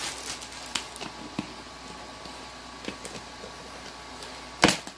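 Handling noise as a laptop is tugged at in its cardboard box tray: light rustles and clicks, with one sharp knock near the end.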